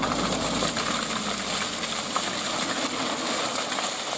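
Crushed stone pouring out of a tipped dump-truck bed, a steady dense clatter of rocks spilling onto the road, with the truck's engine running underneath.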